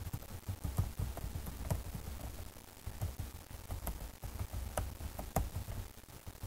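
Computer keyboard being typed on: irregular key clicks, several a second, with dull low thumps.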